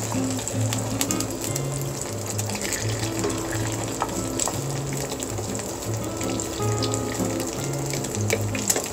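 An egg frying in hot oil in a nonstick pan, sizzling steadily with many small pops, over background music.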